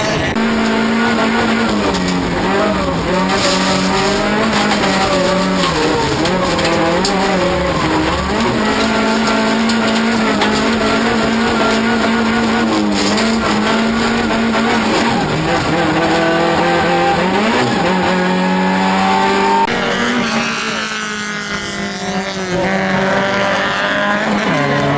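Rallycross Toyota Corolla's engine heard from inside the cockpit at racing speed, running hard, its revs dipping and climbing again several times, over tyre and gravel noise. At about twenty seconds the sound cuts to a quieter trackside recording of a race car's engine revving up as it passes.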